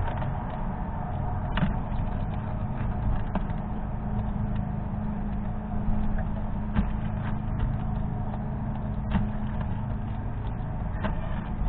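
Fox squirrel cracking and chewing sunflower seeds in the shell: a few sharp clicks at irregular spacing, over a steady low rumble and hum.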